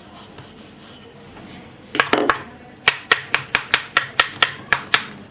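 A utensil tapping sharply on a wooden chopping board while a slab of halua is being shaped. A short cluster of knocks about two seconds in is followed by about ten even taps at roughly four a second.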